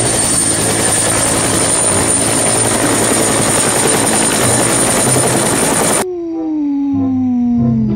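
Helicopter sound effect: loud, steady rotor and engine noise that cuts off suddenly about six seconds in, followed by a tone sliding down in pitch.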